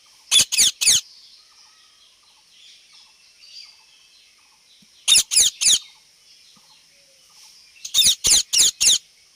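Parrot calling in three quick bursts of short, loud, high falling notes: three notes near the start, three about five seconds in, and four near the end.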